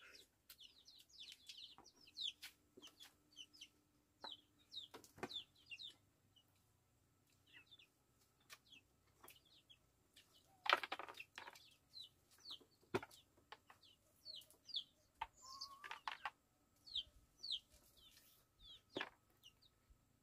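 Faint chickens peeping and clucking: many short, high chirps falling in pitch, with one louder call about halfway through.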